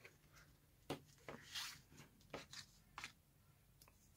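Faint handling of paper: a few soft taps and short rustles as a paper envelope is pressed down onto a journal page, going quiet near the end.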